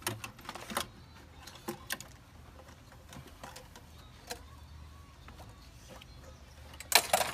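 Scattered light clicks and knocks of parts and tools being handled, with a louder cluster of clicks near the end.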